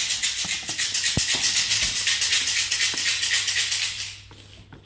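Protein powder in a large plastic tub being shaken, a fast even rattle of about nine strokes a second that stops about four seconds in.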